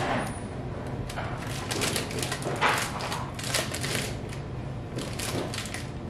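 Crinkling and rustling of a small spice bag being handled and tipped to shake paprika onto a measuring spoon, in irregular crackles, the loudest a little before three seconds in.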